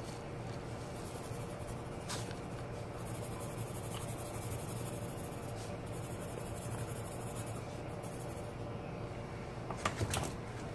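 Graphite pencil scratching and rubbing lightly on drawing paper as the face of a portrait is shaded, over a steady low hum, with a few short taps near the end.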